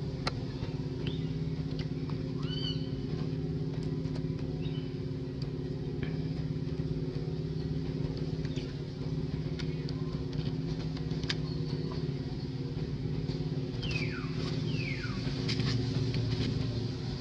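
A steady engine hum, like a motor idling, carries on throughout. A few short high-pitched calls come over it, with two falling squeals near the end.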